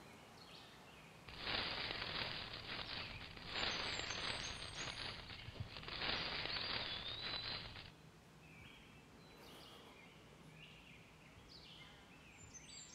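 Woodland ambience of birds chirping, with a rustling hiss in three stretches of about two seconds each in the first half.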